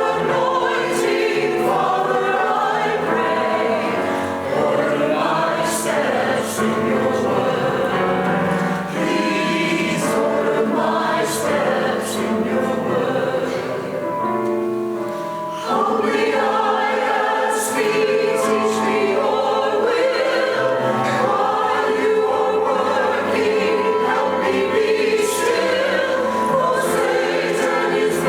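Church choir singing sacred music in held chords, with a softer passage about halfway through before the voices come back in louder.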